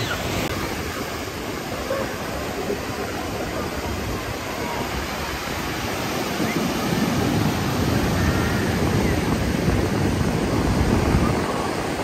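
Ocean surf breaking and washing up the beach: a steady rushing noise that swells louder for a few seconds past the middle, then eases.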